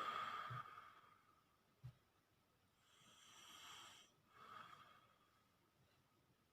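Faint, slow breathing of a sleeper snoring softly. It opens with a noisy breath out that has a short snort in it. About three seconds in comes a drawn-in breath, then another breath out.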